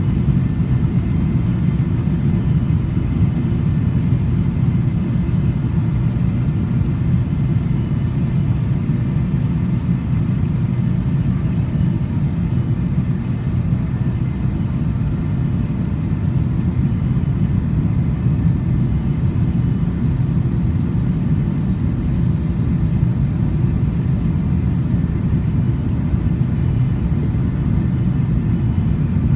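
Airliner's jet engines giving a steady low rumble that holds an even level without rising or falling.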